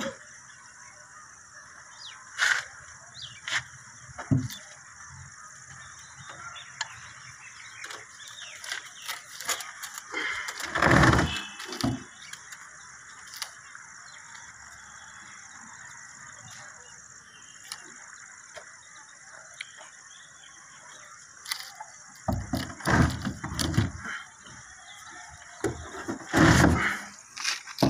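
Scattered knocks and clicks of plastic water pipes and fittings being handled and fitted together, with louder clusters of rattling about eleven seconds in and again near the end.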